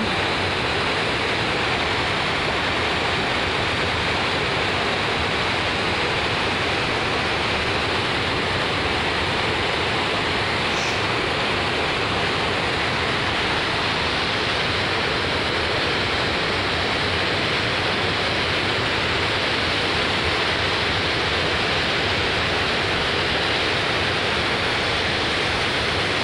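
River water pouring over a low concrete dam spillway: steady rushing whitewater.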